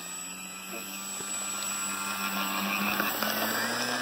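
Electric motor and propeller of an RC Sport Cub model plane running up on a takeoff roll, a steady whine growing louder as the throttle comes up. The prop is a little out of balance, which makes the plane vibrate at high power on its 4-cell battery.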